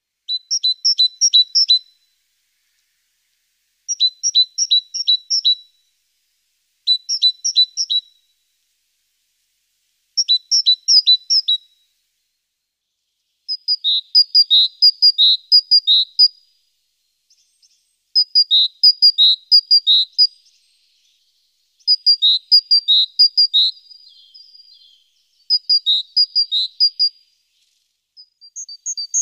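A songbird singing short phrases about every three to four seconds, each a quick run of repeated high two-note motifs, with silent pauses in between. The later phrases run a little longer.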